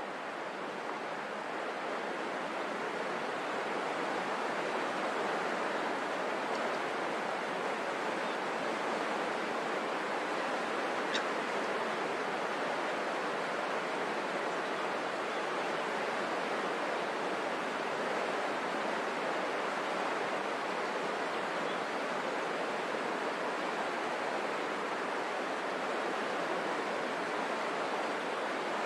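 Steady, even rushing ambience of open water, with no grebe calls, and a faint single tick about eleven seconds in.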